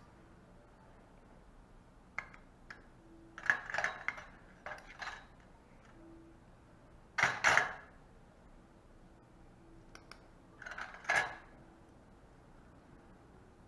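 Steel surgical instruments clinking and clattering against each other, metal on metal, in several short bursts, the loudest about seven seconds in.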